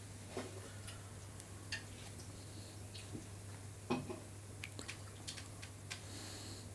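Quiet room tone with a steady low hum and scattered small clicks and taps, the loudest about four seconds in.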